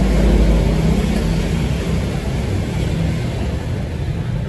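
Street traffic: a motor vehicle's engine rumbling as it passes, loudest near the start and fading slowly.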